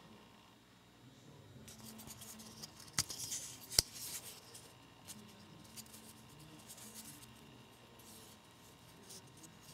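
Faint handling of a folding pocket knife, with light scraping and two sharp clicks about three and four seconds in.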